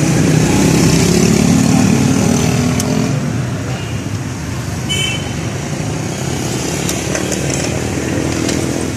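Street traffic: a motorcycle engine running close by, loudest in the first three seconds, with scattered clicks and a brief high tone about five seconds in.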